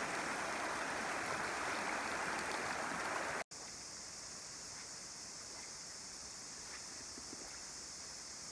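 Flowing river water, an even rushing hiss, for about the first three and a half seconds. It cuts off suddenly to a quieter background of a steady, high insect drone.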